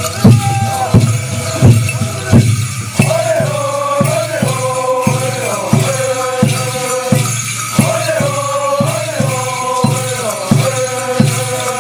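Native American animal-dance song: a steady drumbeat with a group of singers chanting over it, the singing growing strong about three seconds in, and the rattles and bells on the dancers jingling.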